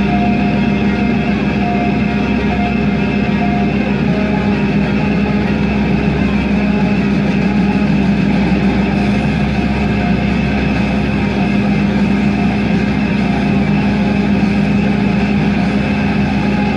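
Ponsse Ergo forestry harvester's diesel engine running steadily, heard from inside the cab, with a constant low hum.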